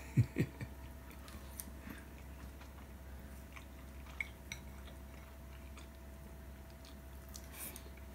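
Quiet chewing of a mouthful of tuna rice bowl, with a few light knocks of wooden chopsticks against the ceramic bowl in the first second and a couple of small clicks about four seconds in. A faint steady hum lies underneath.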